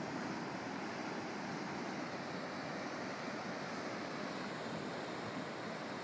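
Pacific surf breaking along a rocky shoreline, heard from the cliff above as a steady, even wash with no single wave standing out. A little wind is mixed in.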